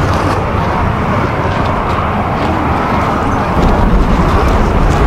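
Airbus A350's Rolls-Royce Trent XWB jet engines running as the airliner taxis: a steady jet whoosh. A deeper rumble comes in about three and a half seconds in.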